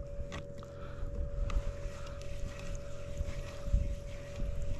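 Boat motor running steadily while trolling, with a constant whine over a low rumble, and wind buffeting the microphone.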